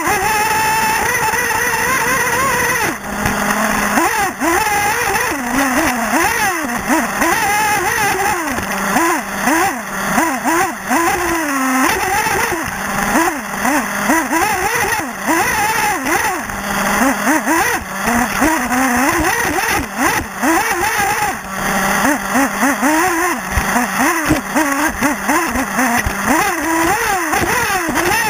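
Small two-stroke glow (nitro) engine of a 1/8-scale RC buggy, heard up close from a camera mounted on the car. It revs up in high, rising whines and drops back again and again as the buggy accelerates and brakes around the track.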